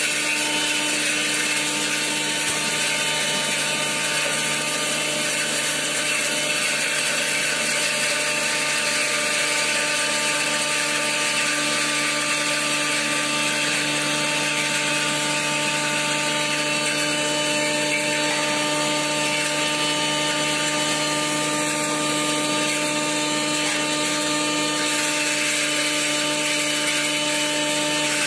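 Belt-driven beater-type powdering mill (pulverizer) running steadily while grinding dried turmeric into powder: a continuous loud mechanical whir with a constant motor hum.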